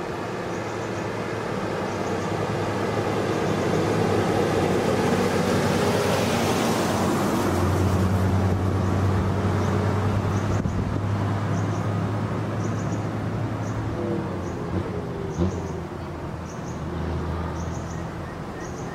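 Diesel cargo trucks running as they creep past, one close by; the engine rumble swells to its loudest in the middle and eases off near the end. Short high chirps repeat about once a second behind it.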